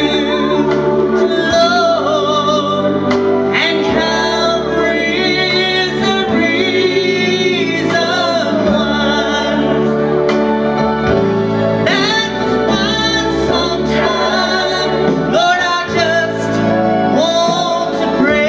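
A man singing a slow gospel song into a handheld microphone, holding notes with vibrato, over steady instrumental chords and a bass line that changes every few seconds.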